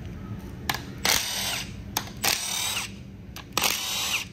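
Milwaukee Fuel 3/8-inch stubby impact wrench run in three short bursts, spinning out the valley-cover bolts on a Cadillac 6.2 L V8, with small clicks between the bursts.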